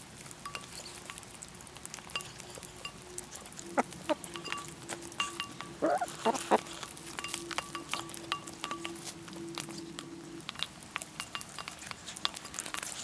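Hens pecking oatmeal from a bowl: a running patter of quick beak taps, with a low steady hum through most of it and a couple of short clucks about six seconds in.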